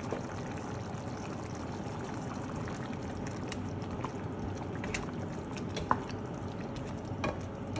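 Pork-rib stew in a soy and tomato sauce bubbling steadily in a steaming pan. Partway through, a wooden spatula stirs through the meat, and a few small clicks and pops stand out.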